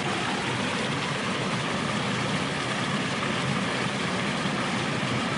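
Steady rushing of water at a spillway, an even roar with no breaks or distinct events.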